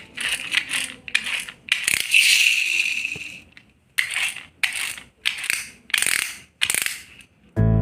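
Short bursts of clattering and rattling from small hard toys being handled, about ten bursts with gaps between them, one longer at about two seconds in. Music starts right at the end.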